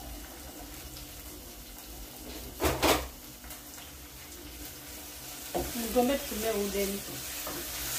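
Spoon stirring frying vegetables in a metal saucepan on a gas stove, with a short clatter of spoon against pan about two and a half seconds in. From about five and a half seconds the stirring grows louder and a wavering pitched sound joins it.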